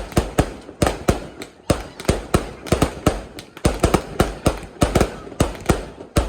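Fireworks going off in a rapid, irregular barrage of loud bangs, several a second, each with a short echo.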